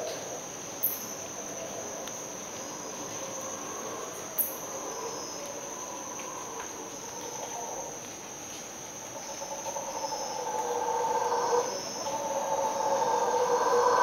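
Steady high insect trilling, with distant mantled howler monkeys roaring. The howls swell in the second half and are loudest near the end. Two short sharp sounds come about a second in and again near four and a half seconds.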